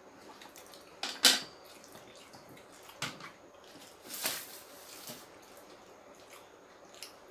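Someone eating rice and curry from a plate: a few scattered sharp clicks and wet smacks, the loudest about a second in and a softer, noisier one around four seconds.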